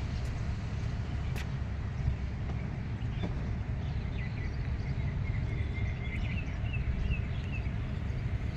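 Steady low outdoor rumble, like wind on the microphone or distant traffic, with a few faint high bird chirps about halfway through.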